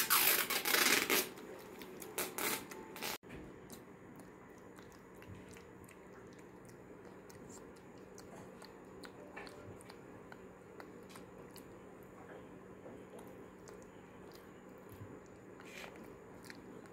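A loud rustling, crunching noise for about a second, then two shorter ones. After that come faint clicks and smacks of a macaque eating porridge off a spoon.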